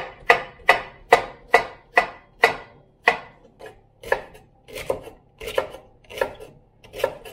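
Chef's knife chopping vegetables on a wooden cutting board: sharp strikes a little over two a second, growing softer and less even after about three seconds.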